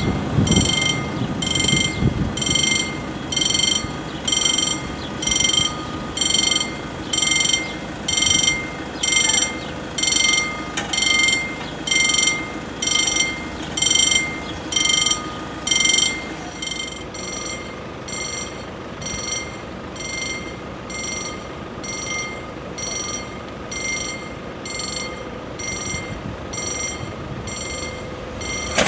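Level crossing warning bell ringing in even strokes, about three every two seconds, warning of an approaching train. The strokes grow fainter a little over halfway through.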